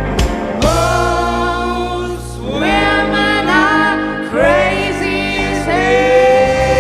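Live band playing, with voices singing long held notes over a steady accompaniment.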